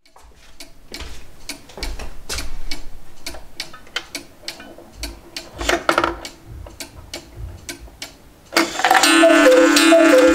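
Black Forest cuckoo clock's works clicking and ticking in an uneven run. About eight and a half seconds in, its music box starts playing a tune, much louder than the clicking.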